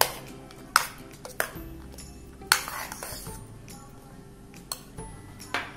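Metal spoon clinking and scraping against a glass bowl while stirring thick custard: several sharp clinks spread through, with a longer scrape about two and a half seconds in.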